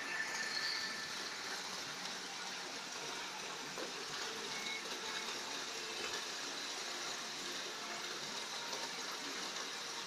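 Water falling in thin sheets from the spouts of a stone garden waterfall and splashing steadily into its shallow pool.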